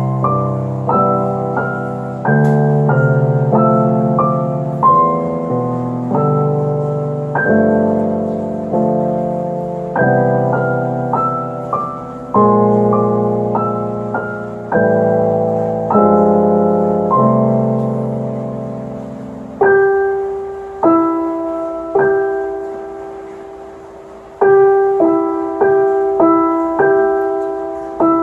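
Solo piano played by hand: a melody over low left-hand chords, each note struck and dying away. About two-thirds of the way through, the low chords drop out and a lighter passage of higher notes follows.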